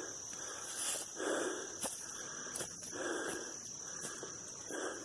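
Steady high-pitched chorus of insects in the woods. Soft rustling swells come about every one and a half to two seconds.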